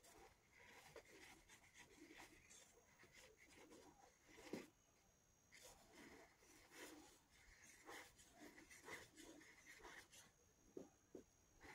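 Faint scratching of a marker tip scribbling back and forth across T-shirt fabric in quick, irregular strokes. A brief knock comes about halfway through.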